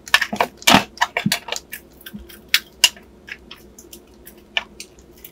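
Hard plastic parts of a pan balance clicking and knocking together as they are handled and fitted: a quick run of clicks and knocks in the first few seconds, then a few scattered clicks.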